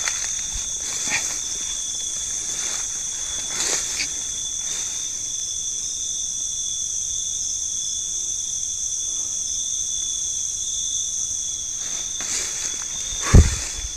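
Night insect chorus, two steady high-pitched drones, with a few rustling footsteps through undergrowth. A single sharp thump comes near the end.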